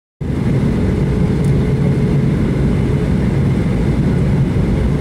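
Steady, loud low rumble of engine and airflow noise heard inside the cabin of a Boeing 737-900ER airliner, its CFM56-7B turbofans running, with a faint steady high tone above it.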